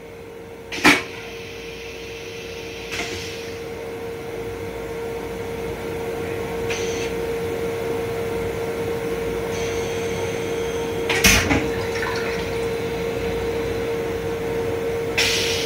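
Steady hum and rumble inside an M7 railcar's restroom, gradually growing louder, with a sharp knock about a second in and another about eleven seconds in.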